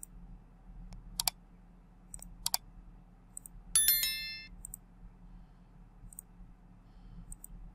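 Subscribe-button animation sound effect: two sharp clicks about a second apart, then a short, bright, ringing ding like a notification bell. A faint steady hum runs underneath.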